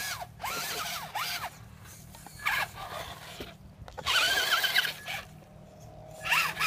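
Electric RC monster truck's motor whining up and down in pitch in short bursts as the throttle is blipped, several times over.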